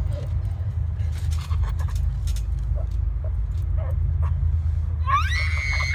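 Steady low rumble of wind buffeting the microphone. About five seconds in, a high-pitched voice cries out, rising in pitch and then holding briefly.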